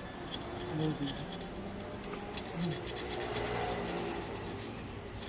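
Light, quick scratching strokes, a few a second, growing busier about halfway through.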